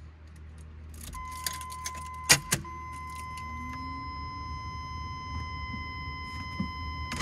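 Ignition keys jangling and clicking at the steering column of a 1978 Chevrolet Corvette, with two sharp clicks a little over two seconds in. From about a second in, a steady high-pitched warning buzzer sounds as the ignition is switched on, before the engine is started.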